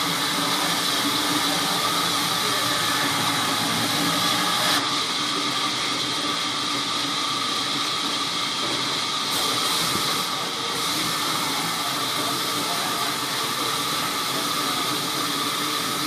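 Sawmill band saw running steadily while its blade cuts lengthwise through a large rain tree log fed by hand: a continuous hiss of the cut over the hum of the saw.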